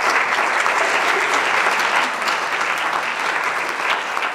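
An audience applauding, many hands clapping steadily, beginning to die away near the end.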